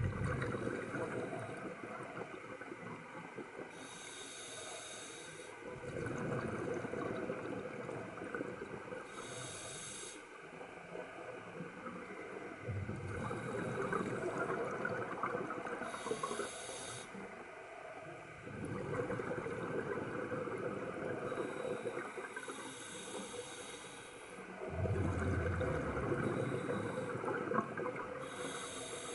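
Scuba diver breathing through a regulator underwater: each exhaled breath is a long stretch of bubbling, followed by a short high hiss as the regulator delivers the next breath, about one breath every six seconds, five in all.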